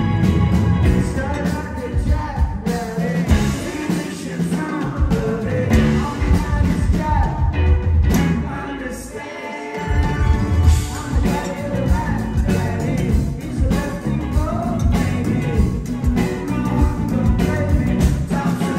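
Live rock band playing a reggae-tinged song on electric guitars, keyboard, bass and drums, with sung vocals, heard at concert volume through the PA.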